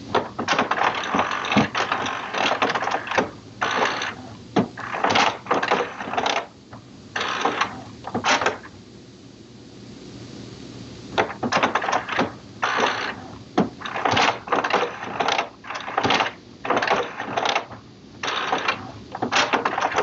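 HP Smart Tank 720/7001 inkjet printer running a level 2 printhead cleaning cycle: its internal mechanism makes stop-and-start mechanical noise in short runs, with a pause of about two seconds midway before the runs resume.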